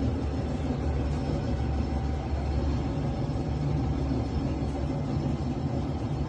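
Toyota 2UZ 4.7-litre V8 engine running steadily at idle, the engine being checked for a misfire.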